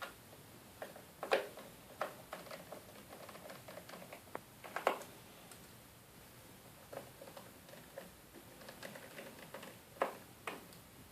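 Scattered light clicks and taps of hard plastic and metal being handled, with a few louder knocks about a second in, at two seconds, at five seconds and at ten seconds.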